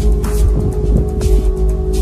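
Background music with steady held tones over a deep bass.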